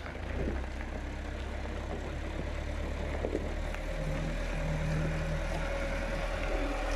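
Diesel tractor engine running steadily at low revs, a higher steady note joining for a moment about four seconds in.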